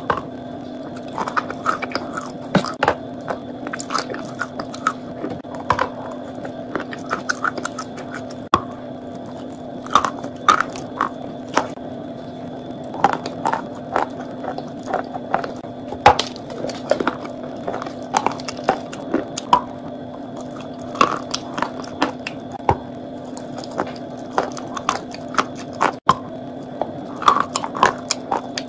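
Close-miked biting and chewing of a crumbly, powdery chalk-like block: many sharp crunches and wet chewing sounds at an uneven pace, over a steady low hum.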